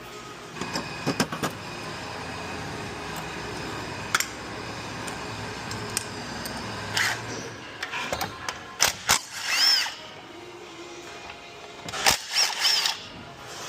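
A power tool runs steadily for several seconds, then stops; scattered clicks and a few short spin-ups of a tool follow.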